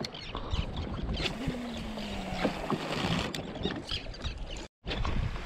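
Water lapping and slapping against the hull of a drifting jetski at sea, with scattered small knocks and a short falling hum about a second and a half in. The sound drops out for a moment near the end.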